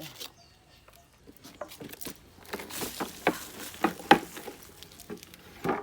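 Soil being scooped and poured in a plant pot: irregular light pattering and clicks, with a sharper knock about four seconds in.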